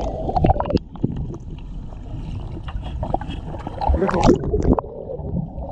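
Pool water sloshing and splashing around a waterproof camera at the surface, heard muffled while the camera is under water, with a louder burst of splashing about four seconds in.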